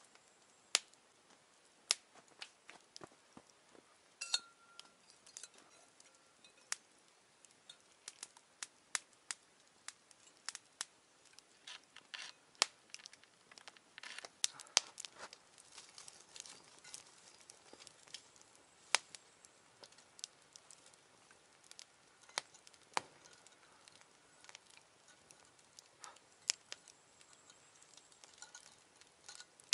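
Open wood campfire crackling, with irregular sharp pops and snaps.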